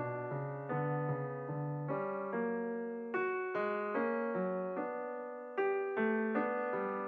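Background piano music: a slow melody of struck notes, about two a second, each fading before the next; low bass notes drop out about two seconds in.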